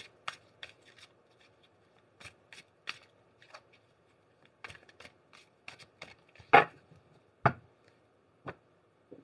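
Tarot cards being shuffled by hand: a run of soft card slaps and flicks, with two louder knocks a second apart in the second half.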